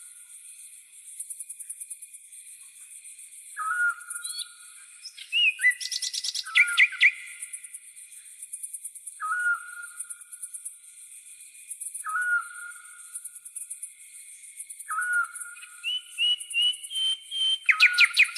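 Tropical forest birds calling. One bird repeats a short whistled note every two to three seconds, while others chirp higher and faster, over a steady high pulsing chorus of crickets.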